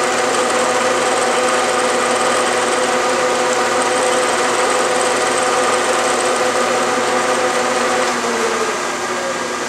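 Bridgeport milling machine running with its spindle turning a center drill into a hot-rolled steel plate: a steady machine hum with a few constant tones. About eight seconds in, the drill is raised out of the work and the sound eases a little, with a short falling tone.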